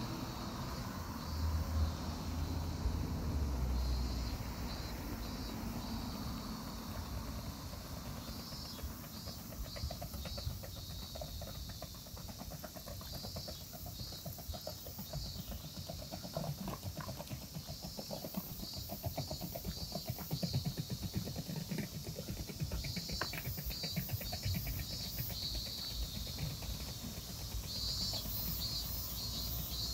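Cicadas singing in pulsing, repeating phrases. Underneath is a low outdoor rumble, briefly louder a couple of seconds in.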